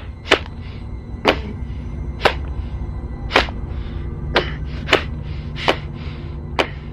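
A series of eight sharp whacks, roughly one a second but unevenly spaced, each with a brief hissing tail, over a steady low hum.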